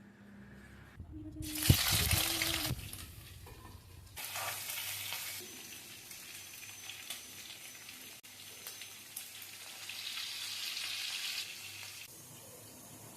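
Food sizzling in hot oil in a pan. The loudest hiss starts suddenly about a second and a half in, with a sharp click, as if something has been added to the oil. A second surge follows a couple of seconds later, then steady frying that swells again near the end.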